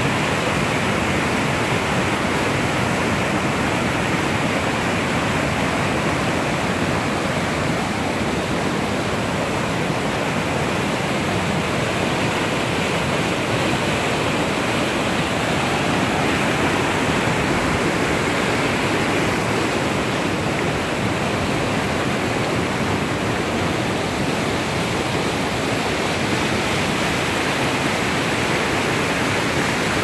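White water of a mountain river rushing over a rocky cascade: a steady, even rush of falling and tumbling water.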